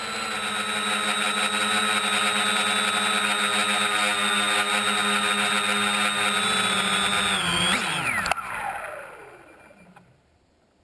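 Wooden-frame quadcopter's electric motors and propellers, heard from its onboard camera: a steady whine of several tones while it flies low. About eight seconds in, the pitch falls steeply as the motors throttle down on landing, with one knock, and the whine dies away.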